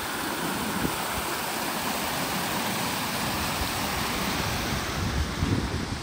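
Creek water rushing and churning over a low rocky ledge: a steady, even rush.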